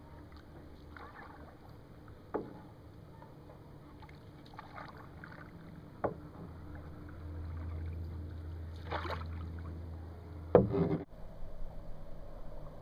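Canoe paddle strokes in calm water: soft splashes and drips as the blade dips and pulls. Two sharp knocks come in the middle, and a louder thump comes near the end.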